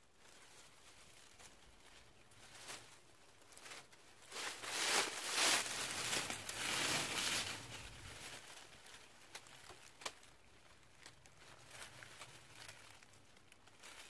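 Dry leaves and dead grass rustling and crackling as hands rummage through them, digging up wild greens, with scattered small snaps; loudest for a few seconds around the middle.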